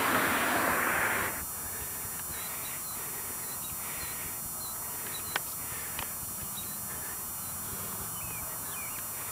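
A loud rushing noise cuts off about a second in. It leaves an open-air background with small bird chirps and two sharp clicks a little past the middle.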